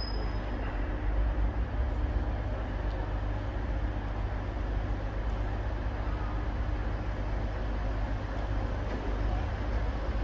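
Class 150 diesel multiple unit drawing slowly into a station, its engines giving a steady low rumble with a faint hum.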